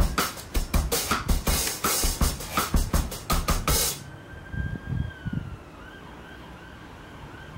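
Background music with a steady drum-kit beat that cuts off abruptly about halfway through. A much quieter stretch follows, with a faint high tone that slides down in pitch.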